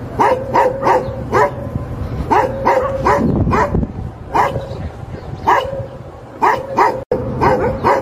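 Labrador retriever barking: a loud, irregular series of about fifteen short, sharp barks, some coming in quick runs of two or three.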